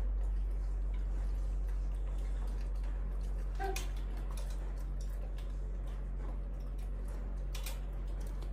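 A steady low hum with scattered faint clicks and ticks, and one short high squeak from a young monkey about three and a half seconds in.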